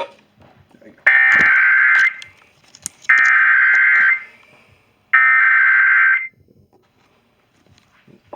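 Emergency Alert System SAME header: three bursts of digital data tones, each about a second long with about a second's gap between them. They mark the start of a broadcast EAS alert and carry the coded alert data to receiving stations.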